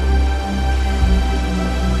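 Background music with steady sustained bass notes and layered held tones.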